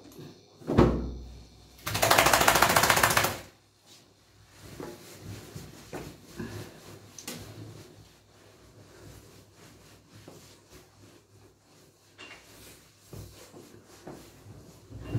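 A wet small dog being towel-dried in a bathtub: a thump about a second in, then a loud burst of very rapid flapping for about a second and a half, then soft rubbing and handling noises.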